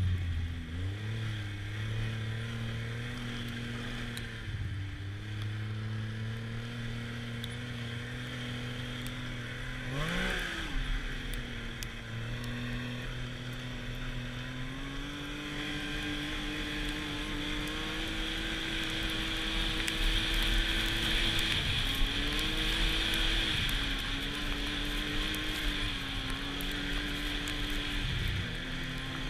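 Arctic Cat snowmobile engine running while the sled is ridden, its pitch shifting up and down with the throttle. It makes a quick rising rev about ten seconds in, over a steady rushing noise.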